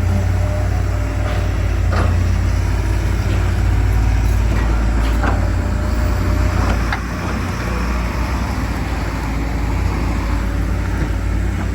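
Hydraulic excavator's diesel engine running steadily under load, with a few short knocks from the working machine.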